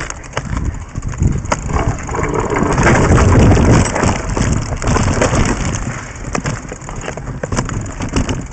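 Mountain bike descending a rocky dirt trail: the bike rattles and clatters over rocks and the tyres crunch on dirt and gravel, with heavy wind rumble on the microphone, loudest about three to four seconds in.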